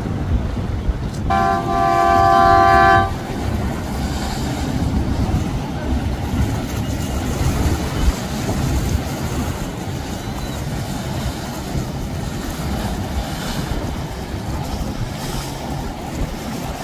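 A horn gives one steady blast of nearly two seconds, about a second in, over a continuous low rumble of boat engines, water wash and wind.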